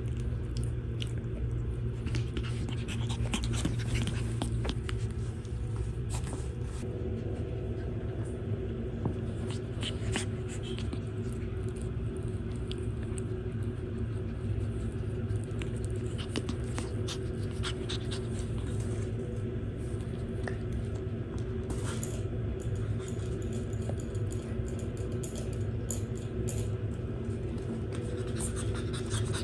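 Shih Tzu puppies panting and scuffling as they mouth a plush toy: scattered small scratches and rustles over a steady low hum.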